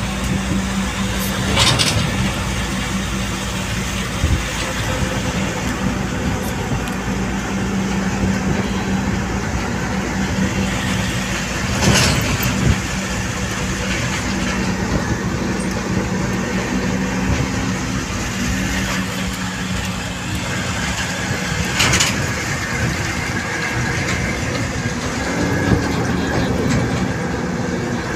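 Ashok Leyland tipper truck's diesel engine and road noise, heard from inside the cab while cruising at steady speed: a constant low drone with a steady hum, broken by four short sharp knocks spread through.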